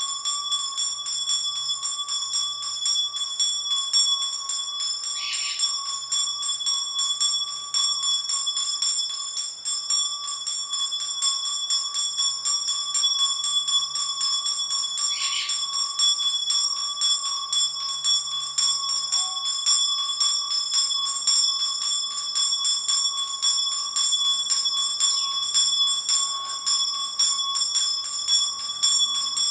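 Small brass hand bell rung steadily without a pause, its clapper striking over and over and a high ringing tone with bright overtones held throughout; it is rung over a herbal spiritual bath to give it vibration.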